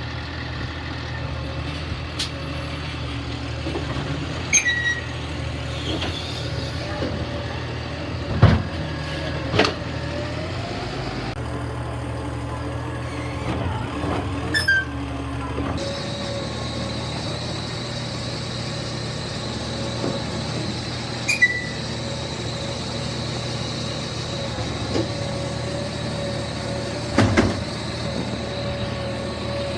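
Garbage truck's engine running steadily. Three short, high chirps fall in pitch like a bird's tweet. A few sharp knocks, the loudest about a third of the way in and near the end.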